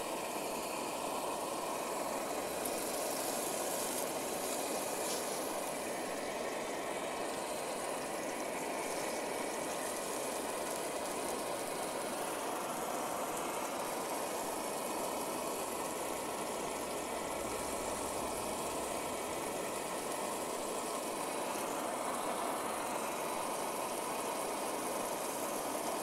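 Optimus Polaris camp stove's burner running steadily on propane under a frying pan, with a steak sizzling in the pan.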